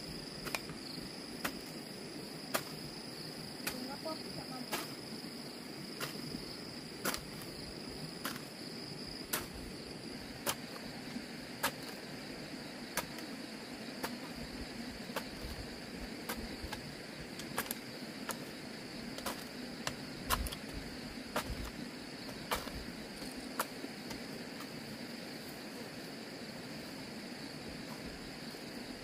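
Steady high-pitched drone of insects, with sharp clicks or taps at about one a second.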